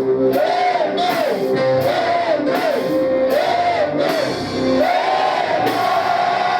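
Live church band music with a steady drum beat and cymbal strokes about twice a second, under a melody that rises and falls in short repeated phrases.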